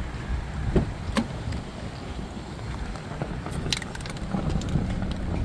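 Strong gusting wind buffeting the microphone, a steady low rumble, with a few light clicks about a second in and again near the four-second mark.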